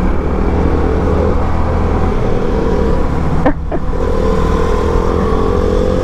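Yamaha R15 V3 BS4's 155cc single-cylinder engine pulling the bike up through the gears. The engine note breaks off briefly about three and a half seconds in, then comes back steady and slowly rising in pitch.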